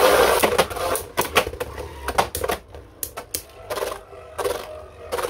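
Two Beyblade Burst spinning tops, Brave Valkyrie and Tempest Dragon, clashing in a stadium: an irregular run of sharp clacks as they hit, loudest in the first second or so, over a faint spinning whir.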